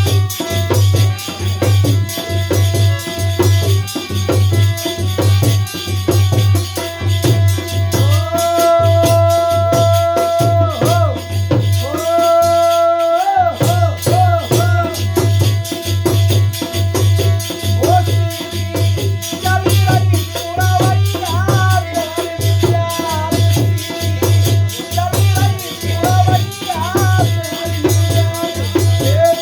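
Holi folk song: singing over a steady drum beat and shaken rattle percussion, with long held notes about eight and twelve seconds in.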